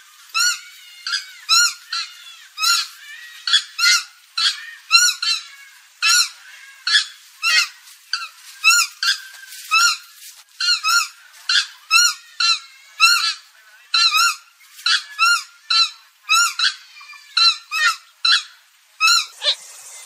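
Purple gallinule calling: a fast series of short, pitched calls, about two a second, each bending up and then down in pitch.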